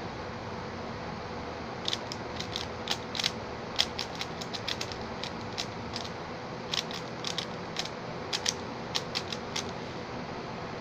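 Xin Lexin stickerless 3x3 speed cube being turned fast by hand: quick, irregular plastic clicks and clacks of the layers snapping round, starting about two seconds in and stopping shortly before the end, over a steady hiss.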